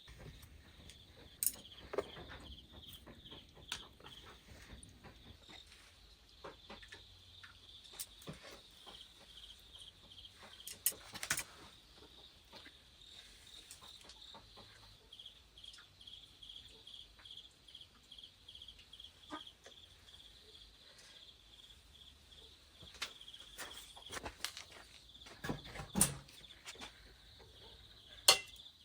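Insects chirring steadily in a high, finely pulsing trill, with scattered sharp clicks and knocks over it.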